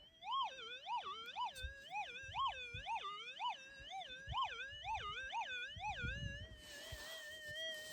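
Minelab SDC 2300 gold metal detector sounding a run of target signals: its tone swings up and down about twice a second, as it does when a gold-bearing piece passes back and forth over the coil. About six and a half seconds in it drops back to its steady threshold hum.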